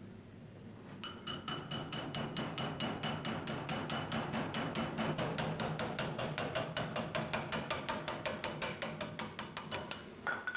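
A hammer striking a steel drift rod held against the rusted pivot bolt of a pair of pruning shears clamped in a vise, driving the bolt out to take the shears apart. It is rapid, steady hammering, about six ringing metal strikes a second, starting about a second in and stopping just before the end.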